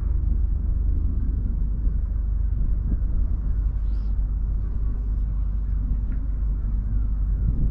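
A steady low outdoor rumble with no distinct events.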